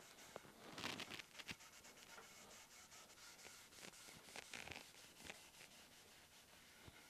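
Faint rubbing of a cloth wiping stain onto an ash-wood lamp part, in short scratchy strokes. The strokes come in clusters about a second in and again around four to five seconds.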